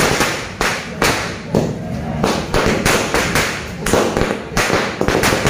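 Firecrackers going off on the ground in a run of sharp bangs and cracks, irregular and about two a second.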